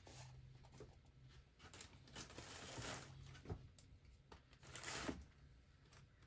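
Faint handling sounds as a jump starter's cables and clamps are hooked up to a car battery: soft rustles and a few light clicks, over a steady low hum.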